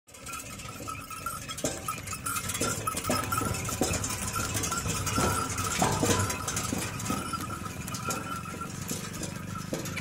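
A bullock cart drawn by two bullocks passing close, with its bells ringing steadily and the wooden-spoked wheels clattering and knocking on the road. It is loudest as the cart goes by at mid-passage.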